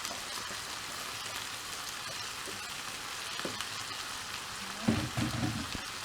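Bean sprouts and green vegetables sizzling in hot oil in a frying pan, a steady hiss, with a louder clatter of stirring about five seconds in.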